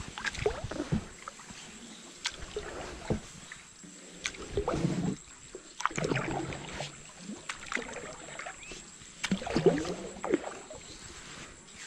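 Paddle strokes on a small river boat: the paddle dipping and pulling through the water in uneven splashes a second or two apart, with a few sharp knocks in between.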